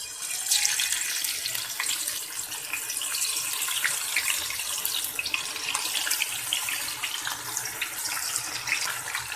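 Hot oil in a karahi sizzling and crackling as chicken shashlik skewers are lowered in and deep-fry: a dense hiss with scattered small pops that starts suddenly.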